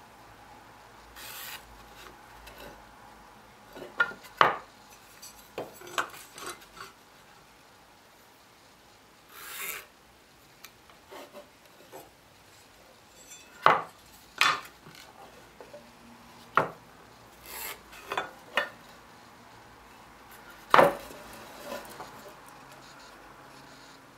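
Pencil scratching lines onto a pine board in three short strokes, with several sharp knocks as a metal speed square and tape measure are set down and shifted on the wooden bench.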